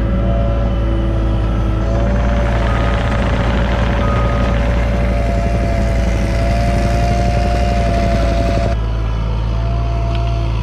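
Cat 303.5 mini excavator running under load while backfilling, its diesel drone overlaid by a steady hydraulic whine. A rush of working noise comes in about two seconds in and cuts off sharply a little before the end.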